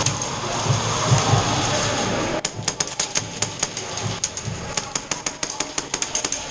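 Airsoft gunfire: a rapid, uneven string of sharp clicking shots, several a second, starting a little over two seconds in, after a stretch of noisy background with low thumps.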